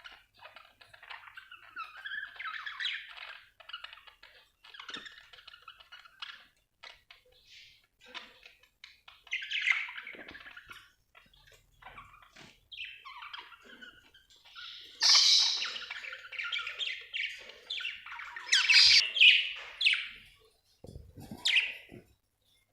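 Budgerigars chirping and warbling in bursts, with short gaps between them and louder squawky calls in the second half.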